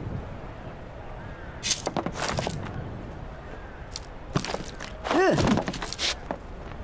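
Cartoon sound effects: several clusters of sharp cracks and knocks, with a short pitched sound about five seconds in that rises and then falls.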